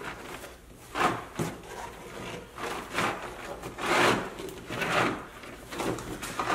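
Rubber floor mat of an EZGO RXV golf cart being pulled and peeled up off the floorboard, rubbing and scraping in a series of swishes roughly once a second.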